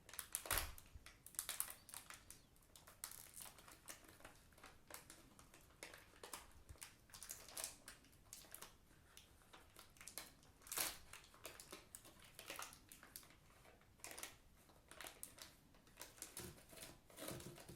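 Plastic candy wrapper crinkling and rustling as the packet is handled, in irregular crackles with louder ones about half a second in and around eleven seconds.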